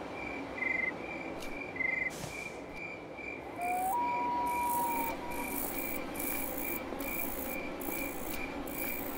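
Insect chirping in a steady, even pulse, about two or three chirps a second, over a continuous low rumbling noise. A brief whistle-like tone rises and then holds level for about a second, about four seconds in.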